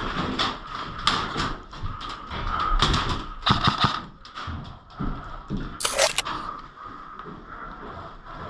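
Irregular knocks, thuds and clatter of an airsoft player moving with gear in a small room, with one short sharp hiss about six seconds in.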